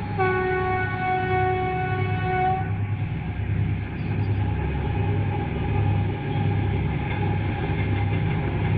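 Freight train's twin-section diesel locomotive sounds one long steady horn note of about two and a half seconds, starting just after the beginning, over the steady low throb of the running train.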